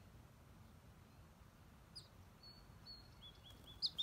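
Faint, high chirping calls of goldfinches: a goldfinch fledgling calling back and forth with adults. There is a single chirp about two seconds in, then a quick run of short chirps in the last second.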